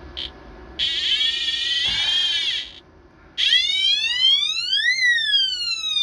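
Water-leak detection alarm sounding, warning of water in the compartment. After a brief chirp it gives a steady electronic tone for about two seconds, then after a short gap a siren tone that sweeps up and back down.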